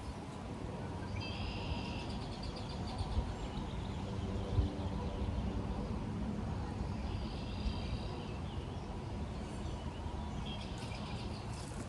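Wind rumbling on the microphone, with a small bird calling in quick chattering trills three times: about a second in, around seven seconds in, and near the end.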